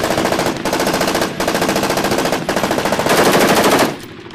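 M16 rifle firing fully automatic: rapid strings of shots broken by three short pauses, stopping shortly before the end.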